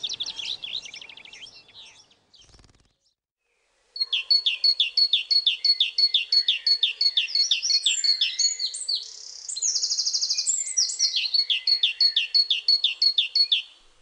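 A bird trill fades out, and after a short pause a great tit sings its song of quick, evenly repeated two-note phrases, about three a second, with a short buzzier stretch near the middle.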